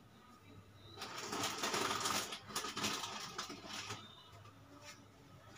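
Rapid, light clicking and rattling, starting about a second in and fading out after about three seconds.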